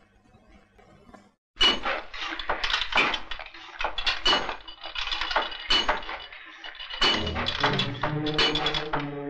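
Sudden run of sharp, ringing clattering strikes, about two or three a second, starting about a second and a half in. Music with held notes joins about seven seconds in.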